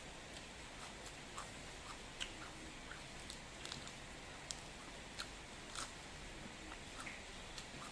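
A person chewing and biting into a pounded salad with rice noodles: irregular crisp crunches and clicks, several a second, over a steady faint hiss.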